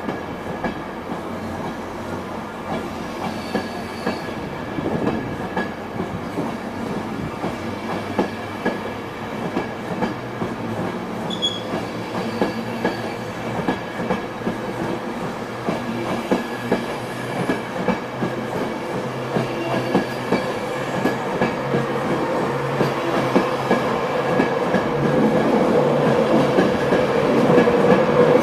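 An InterCity 225 electric train's Mark 4 coaches rolling past at close range as the train pulls away, the wheels clicking over the rail joints. The sound grows steadily louder, and a steady hum swells near the end.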